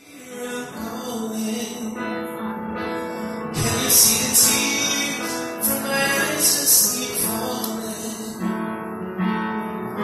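A man singing into a handheld microphone over keyboard accompaniment, live and amplified, with cymbal-like strokes coming in a few seconds in.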